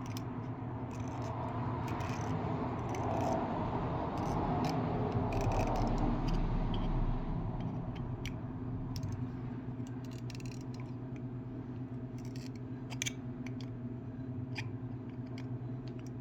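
Small metal clicks, rattles and scrapes of a 1991 Zippo lighter's parts being handled and put back together, scattered irregularly over a steady low hum.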